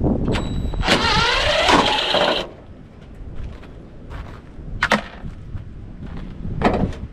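A metal light fixture is being pried and bent apart to get the ballast off. It gives a loud screeching, creaking stretch for about a second and a half, then a couple of sharp knocks.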